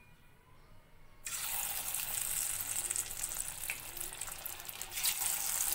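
Hot oil in a steel kadai sizzling as marinated taro (colocasia) pieces are dropped in to fry. The sizzle starts suddenly about a second in and keeps going steadily, swelling briefly near the end as more pieces go in.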